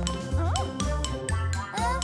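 Children's cartoon background music with a steady, bouncy bass beat and short gliding tones.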